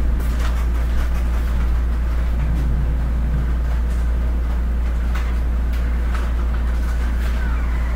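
Heavy rain falling: a steady rushing hiss with scattered sharp taps, over a constant low rumble.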